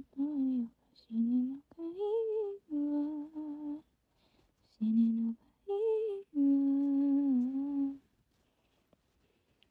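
A woman humming a wordless tune in a string of short notes, ending on a longer, slightly wavering held note that stops about eight seconds in.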